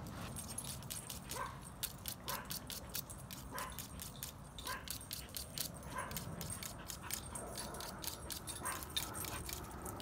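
Knife blade drawn in quick strokes across a hand-held sharpener, a rapid run of short, light metal scrapes as the edge is ground down. A dog whimpers in short high notes about once a second.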